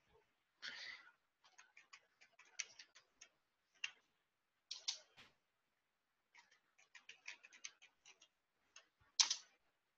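Faint computer keyboard typing: two quick runs of keystrokes entering and then confirming a password, each followed by a harder single key press, the loudest just after nine seconds in. A short burst of noise comes about a second in.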